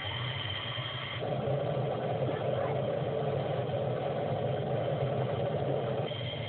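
Steady engine noise around parked fighter jets on a flight line: a low hum throughout, with a thin high whine that drops out about a second in, where a louder rushing noise takes over until near the end.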